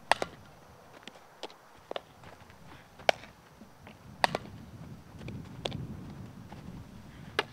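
Sharp cracks of softballs being hit with a bat and smacking into a leather fielding glove during ground-ball fielding practice, several single cracks a second or more apart with a close double about four seconds in.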